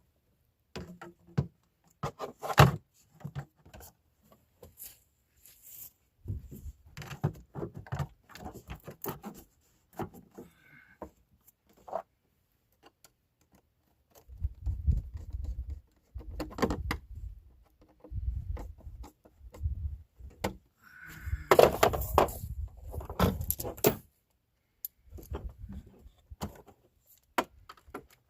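Irregular clinks, knocks and scrapes of parts and tools being handled during engine-bay work on a car, with heavier low thumps in the second half.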